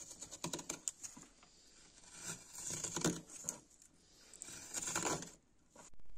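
Freshly sharpened hand-forged spoon knife (hook knife) slicing shavings out of the hollow of a wooden spoon blank. It makes three crackly cutting strokes about two seconds apart, with a short scrape near the end.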